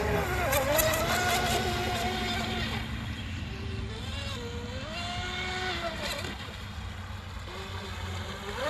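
Pro Boat Stealthwake RC boat running on a 3-cell battery: its electric motor whines, rising and falling in pitch several times as the throttle is worked, over a steady hiss.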